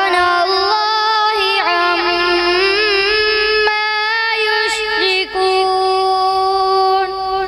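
A boy reciting the Quran in a high voice in the melodic tilawat style, drawing out long notes with ornamented turns. There is a brief break about five seconds in, then one long, steady held note.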